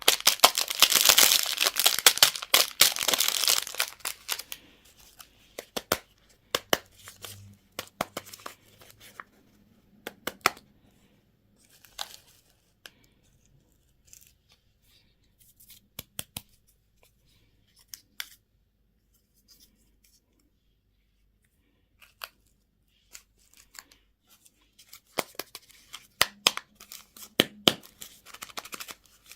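Candy and toy packaging being torn open and crinkled: a dense burst of tearing in the first few seconds, then scattered crackles and clicks with quiet gaps, and another cluster near the end.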